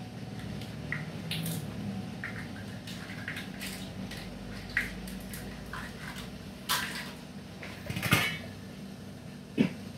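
Kitchenware being handled: small clinks and knocks of dishes and utensils, with louder clatters about five, seven, eight and nearly ten seconds in, over a steady low hum.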